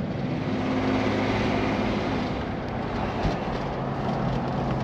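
Car driving along steadily: engine hum with road and tyre noise.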